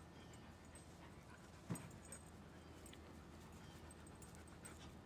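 Near silence: faint outdoor background, broken by one brief low thump about two seconds in.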